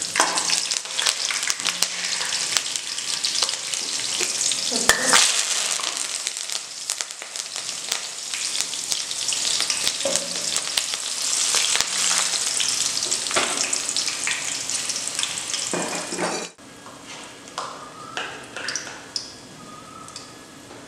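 Hot oil sizzling and spluttering in a steel kadai as a tempering of cumin seeds, green chillies, dried red chillies and curry leaves fries, with a spatula stirring and clinking against the pan now and then. Near the end the sizzle suddenly falls much quieter.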